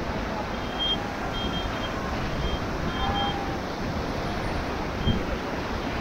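Rushing whitewater of a fast river churning around an inflatable raft, with wind buffeting the microphone.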